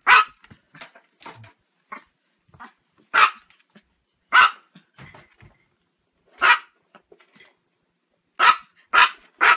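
Small dog barking: about seven short barks at irregular intervals, three of them in quick succession near the end.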